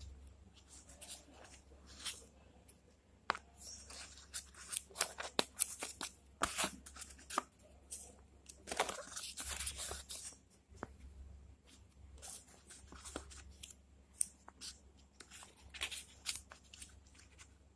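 Paper and card rustling and crinkling as hands open a small paper envelope flap and leaf through stacked paper flip cards, in short irregular crackles with a busier stretch around the middle.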